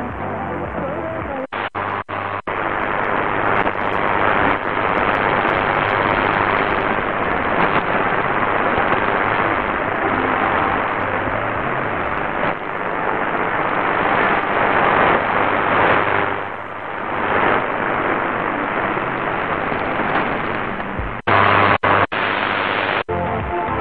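Medium-wave static and hiss from a Qodosen SR-286 portable radio's speaker as it is tuned across the AM band between stations, with a few brief cut-outs as the tuning jumps. A station's music begins to come back through the noise near the end.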